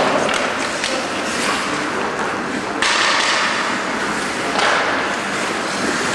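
Ice hockey game heard from the stands of an indoor rink during play: a steady hiss of skates and sticks on the ice with a sharp knock right at the start, the hiss stepping louder about three seconds in and again near five seconds.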